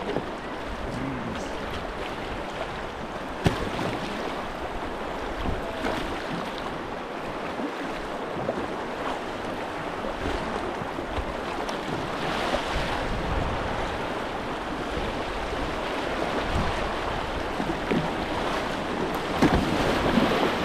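Fast river current rushing and lapping around a whitewater kayak, with the splash of paddle strokes and a few sharp knocks. The water grows louder and splashier near the end as the bow runs into white water.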